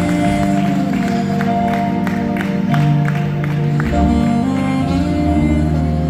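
Saxophone playing sustained melody notes over a backing track with a bass line.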